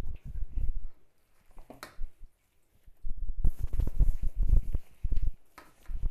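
Hand mixing moringa leaves into batter in a steel bowl: a rapid run of soft wet strokes, a pause of a second or two, then a longer run of strokes.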